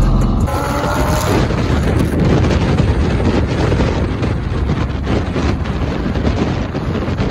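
Loud rumbling noise of a car on the move, with wind buffeting the microphone; a short rising engine note about a second in.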